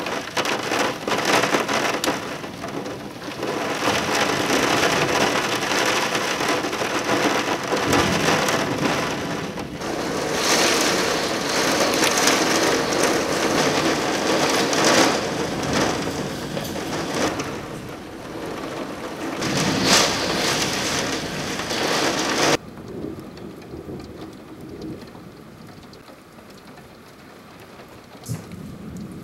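Thunderstorm: heavy rain pouring down, with thunder rumbling now and then. About three-quarters of the way through the sound drops suddenly to quieter rain.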